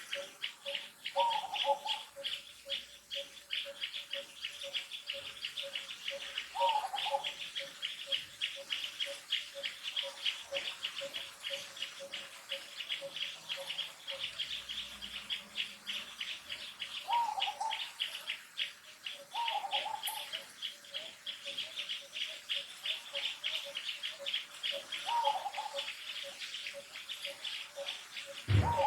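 Insects trilling steadily with very fast pulses, over a second, slower pulsing chirp. A short falling call sounds seven or so times, every few seconds, and there is a low thump near the end.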